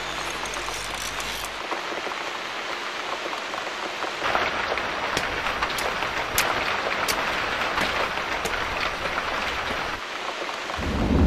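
Steady rain falling, with a few sharp drop-like ticks in the middle and a low rumble of thunder building near the end.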